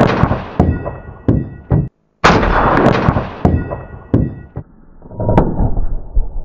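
A rifle shot striking a steel pressure cooker, heard twice in a row as replays. Each is a sudden loud bang with a metallic ring that echoes away over a second or two. A quieter rushing noise follows in the last couple of seconds.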